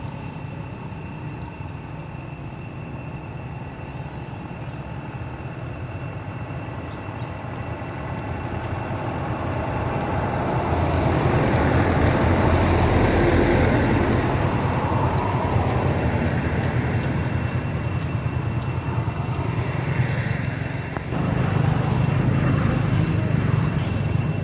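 Road traffic, a bus with motorbikes, driving past; its low rumble swells over several seconds to its loudest about halfway through and stays fairly loud after.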